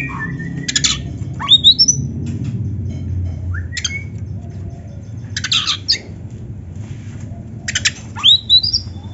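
Oriental magpie-robin (kacer) singing: short harsh rasping bursts alternating with quick upward-sweeping whistled notes, over a low steady background rumble.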